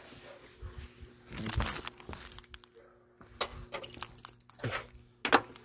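Metallic clicks, rattles and knocks of a 2002 Pontiac Firebird's hood safety latch being felt for and worked by hand under the hood's front edge, with the sharpest knock near the end.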